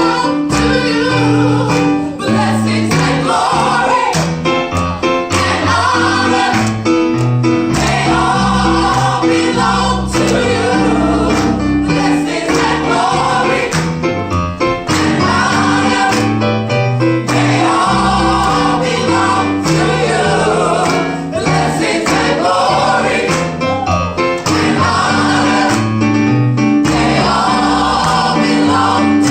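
Gospel choir singing in full voice over a steady instrumental accompaniment with a moving bass line.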